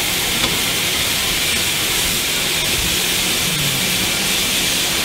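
Steady hiss of steam escaping from a double-headed pair of steam locomotives, the steam leaking out around the cylinders and wheels.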